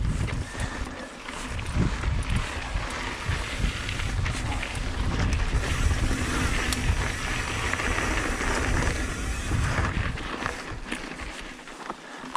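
Mountain bike riding down a loose, silty dirt trail: wind buffeting the camera mic with a low rumble, tyre noise on the dirt and scattered clicks and rattles from the bike over bumps. It gets quieter near the end.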